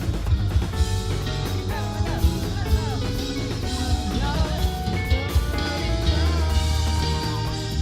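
Background rock music with guitar and drums, the guitar playing bending notes over a steady beat.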